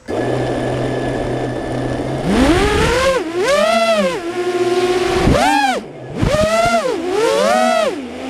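A 5-inch FPV freestyle quadcopter's four DYS 2306 2500KV brushless motors, idling steadily with a low hum while armed on the ground. About two seconds in they throttle up into a rising whine at takeoff, then the pitch swells and falls again and again with throttle in flight, dropping away briefly near five and six seconds in.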